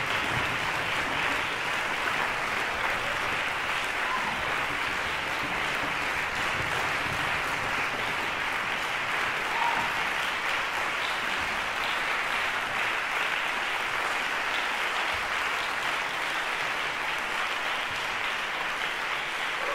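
Concert audience applauding steadily through a curtain call.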